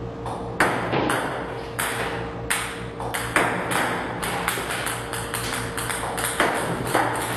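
Table tennis balls from a ball-throwing robot clicking on the table, irregularly about one or two a second, over a steady low hum.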